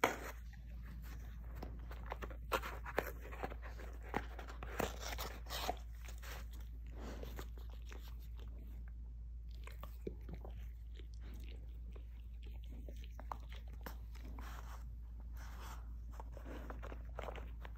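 Basset hound chewing and tearing an empty cardboard paper towel tube: irregular crunching and ripping of the cardboard, with short pauses between.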